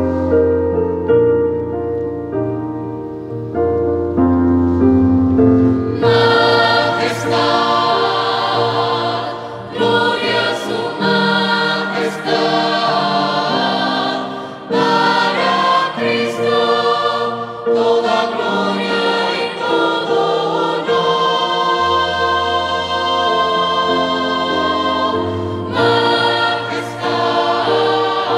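Electronic keyboard playing a slow passage with a piano sound, then a mixed choir of men and women comes in about six seconds in, singing a sacred song over the keyboard accompaniment.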